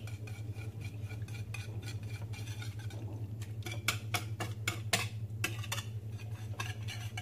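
Wire balloon whisk beating a raw egg mixture in a ceramic bowl, its wires clicking rapidly against the bowl, with a few louder strokes around the middle. A steady low hum runs underneath.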